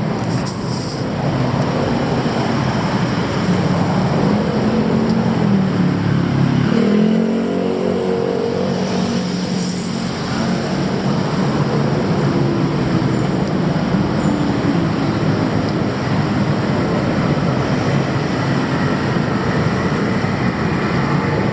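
City street traffic: a steady wash of passing vehicles, with one engine rising in pitch as it speeds up about six seconds in.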